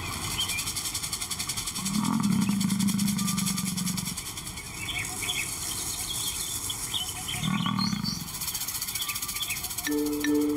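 Lion giving two low roars, a long one about two seconds in and a shorter one around eight seconds, with faint bird chirps and insect hiss behind. Music comes in near the end.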